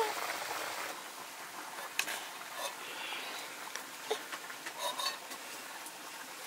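A few light clinks and knocks of kitchen utensils and dishes, spaced irregularly over a low steady hiss.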